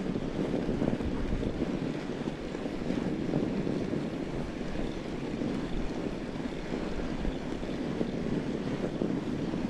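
Steady wind buffeting the microphone mixed with the rumble and crunch of a fat bike's tyres rolling over snow.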